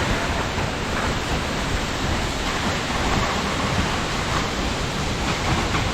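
Waterfall's falling water making a steady, even rushing noise.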